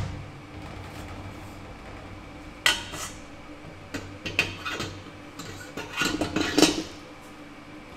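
Stainless steel mixing bowl and metal parts of a Buffalo GL-190 planetary mixer clanking and clinking as they are fitted together. There is a sharp clank about two and a half seconds in, then scattered lighter knocks, and a run of rattling clinks near the end.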